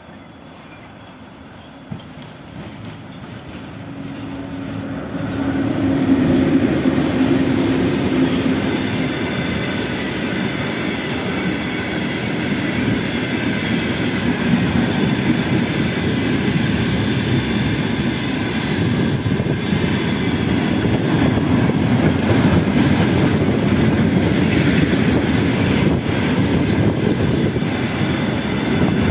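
VL10U electric freight locomotive approaching and passing, its sound building over the first few seconds to a loud, steady noise. A long train of tank cars then rolls by, wheels rumbling on the rails. A single sharp click sounds about two seconds in.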